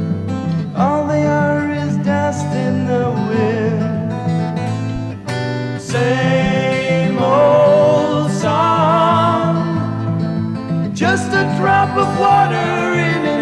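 Music: a song with a singing voice over guitar accompaniment.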